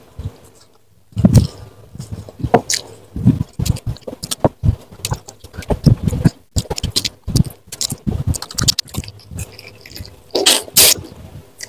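Close-up eating sounds: irregular chewing, lip-smacking and wet mouth clicks while eating by hand, with a louder, longer crunch a little after ten seconds in as a piece of fried fish is bitten and chewed.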